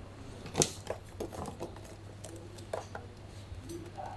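Scattered metallic clicks and clinks of hand tools on metal parts, the sharpest about half a second in, over a steady low hum.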